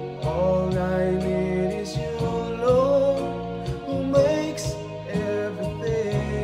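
A man singing a slow worship ballad over a backing track of bass and chords, his voice gliding and wavering in pitch between held notes.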